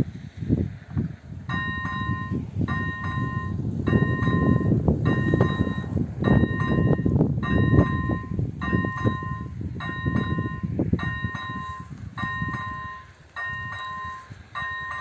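Level-crossing warning bell, the electronic bell of an AŽD 97 crossing, starts about a second and a half in and strikes in a steady repeating rhythm, warning that a train is approaching. Wind rumbles on the microphone underneath.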